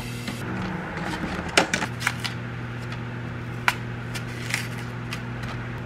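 A microwave oven runs with a steady low hum while cherry tomatoes are dropped into a wooden bowl on a kitchen scale and an apple is cut with a knife, giving a scatter of light clicks and knocks, the sharpest about a second and a half in and near four seconds in.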